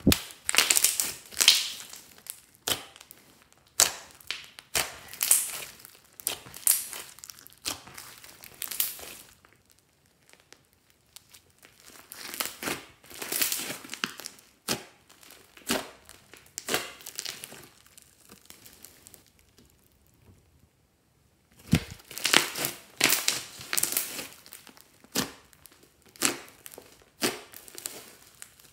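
Hands kneading, pressing and stretching a large mass of fluffy slime mixed with clay and beads: irregular runs of sticky crackling and small clicks, broken by two short quiet pauses.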